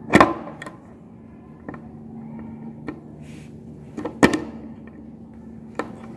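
Metal parts of a Juki button-sewing machine's button clamp clicking and knocking against each other and a screwdriver as they are handled, with a sharp knock at the start and another about four seconds in, and a few lighter clicks between.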